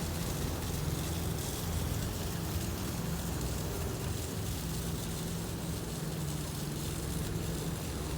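Steady low engine hum with a constant background haze.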